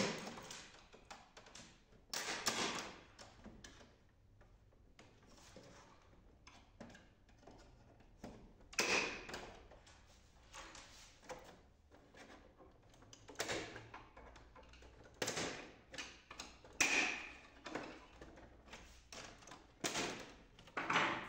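Scattered plastic clicks, snaps and knocks, a second or a few seconds apart, as the snap-fit front panel of an HP LaserJet M234 laser printer is pried and pulled off with a flat screwdriver, its hooks releasing.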